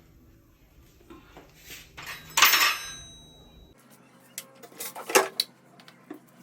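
Dishes and cutlery being handled. A loud clink rings on briefly about two and a half seconds in, then a few sharper knocks and clicks come near the end.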